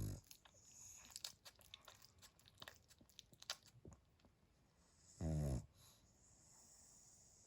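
Pug snoring in its sleep: the end of one snore at the start, then a run of small faint clicks for a few seconds, then one short, loud snore about five seconds in.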